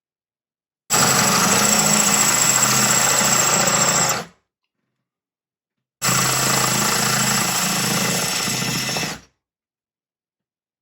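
Electric drill with a Bosch CYL-9 Ceramic tile bit grinding into a glazed wall tile in two steady runs of about three seconds each, stopping in between. The drilling is done in short bursts with breaks because the uncooled tile bit gets really hot.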